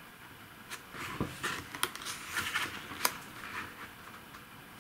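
Pages of a thick paperback booklet being turned by hand: a series of short papery rustles and flicks.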